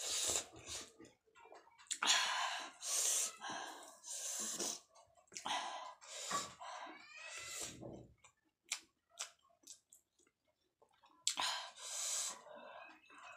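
Close-up mouth sounds of eating rice and curry by hand: wet chewing and lip smacking in irregular bursts, with short pauses between mouthfuls.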